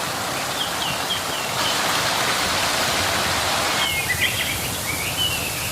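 Steady rush of falling water, like a small waterfall, with birds chirping in short runs near the start and again from about four seconds in.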